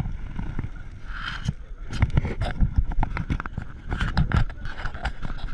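Bolliger & Mabillard hyper coaster train rolling slowly on its steel track into the station, with a low rumble and irregular clacks and knocks from the wheels and track.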